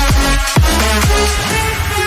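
Electronic background music with a heavy kick drum about twice a second over held synth notes; the deep bass thins out near the end.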